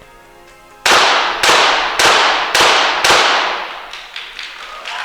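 A rapid-fire series of five pistol shots from .22 Short target pistols, starting about a second in and spaced about half a second apart. Each shot is sharp and followed by a long echoing tail.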